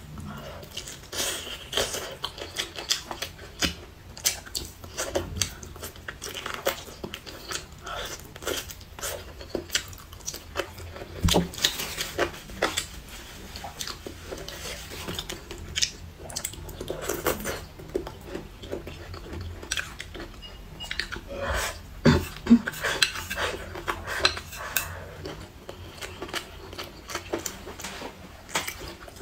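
Close-up eating sounds: chewing and biting, with wooden chopsticks clicking and tapping against the bowl in many irregular short clicks.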